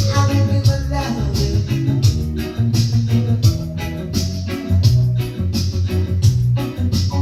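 Reggae music playing: a heavy bass line under a steady beat of evenly spaced drum and cymbal strokes.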